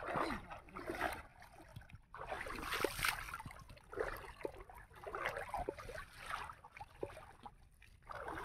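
Shallow water sloshing and splashing in irregular swishes about once a second as a man wades and sweeps a bamboo stick through it, beating the water to drive small fish into set nets.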